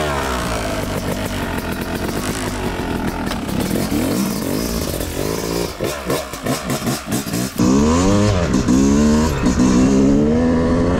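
Yamaha YZ250 single-cylinder two-stroke engine being ridden, the revs rising and falling again and again: a brand-new bike being run in at half throttle. A little past halfway the sound goes choppy for about two seconds, then comes back louder with the revs climbing.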